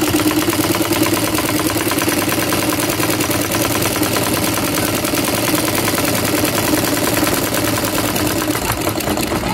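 Yamato ordinary sewing machine, a Singer-pattern straight-stitch machine, running steadily at speed through stretch fabric: a rapid, even clatter of needle and hook over a steady hum. Its hook timing has just been reset, so it is sewing without skipped stitches.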